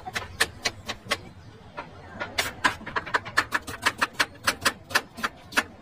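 Knife chopping on a cutting board, the blade knocking the board with each stroke: a few spaced cuts at first, then from about halfway a fast, even run of about five chops a second as an onion is sliced.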